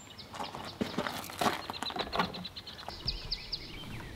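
Short clicks and taps from hands working a fly in a tying vise through the first two and a half seconds, with small birds chirping and singing in the background; a quick run of high chirps comes about three seconds in.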